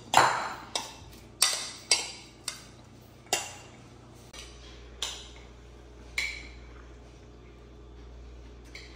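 A metal serving spoon clinking against a ceramic bowl while a chopped chickpea salad is tossed: sharp, ringing clinks about every half second for the first three seconds or so, then two more spaced well apart.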